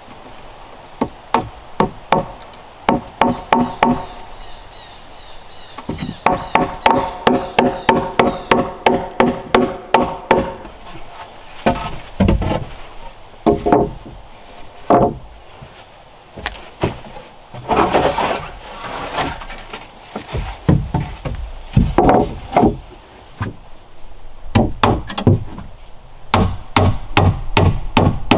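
Hammer driving nails into wooden floor planks in quick runs of strikes, several runs with a ringing pitch from the nails; a few heavier, deeper thuds come between the runs.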